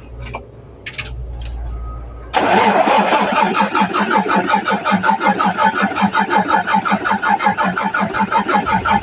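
Mitsubishi Fuso 6M70 six-cylinder diesel being cranked by its starter, starting suddenly about two seconds in with an even, rapid pulsing that goes on without the engine firing. This is the hard-start fault: it cranks but won't catch. A few clicks and low rumble come before the cranking.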